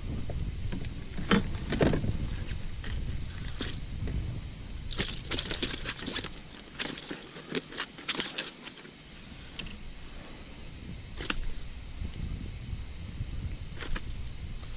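Light clicks, rattles and rustling from hands handling a freshly caught bass and its lure, with a quick run of clicks in the middle. A low rumble under the first half drops away about six seconds in.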